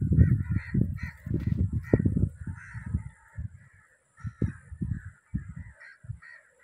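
Birds calling over and over, with low, irregular gusts of wind buffeting the microphone.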